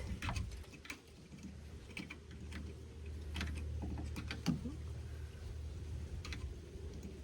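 Light, irregular metal clicks and knocks from handling a snowblower wheel and its cotter pin on the axle, over a low steady rumble.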